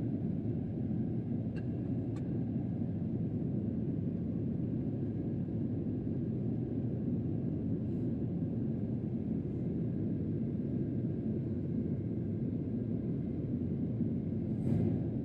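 Steady low rumble of Boeing 737-800 cabin noise in flight, engine and airflow noise heard from a passenger seat. A couple of faint clicks come about two seconds in, and a brief hiss near the end.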